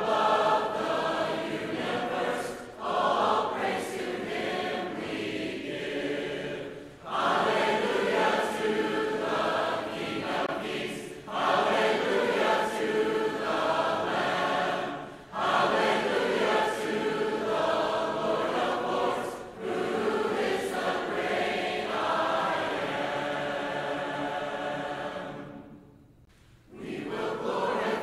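Choir singing, a run of sung phrases with short breaks between them and a brief near-silent gap near the end.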